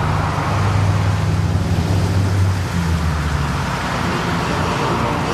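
Riding lawnmower engines running, a steady low hum that shifts slightly in pitch partway through, over a broad noisy background.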